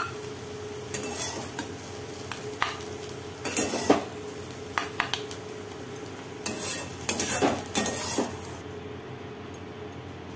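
Steel spatula scraping cooked bottle gourd peel stir-fry across a metal kadai and knocking it into a steel bowl, in several bursts of scrapes and clinks, the loudest a little under four seconds in and between six and a half and eight seconds. A light sizzle from the hot pan runs under it and drops away near the end.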